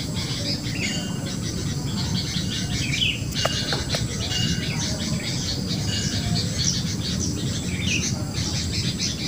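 Birds chirping in short, separate calls a few seconds apart, over a steady low rumble.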